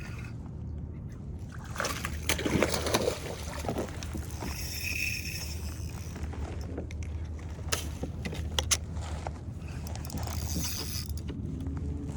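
Water sloshing and splashing against a kayak hull over a steady low rumble, with a louder splashy stretch about two seconds in and a couple of sharp knocks near the middle.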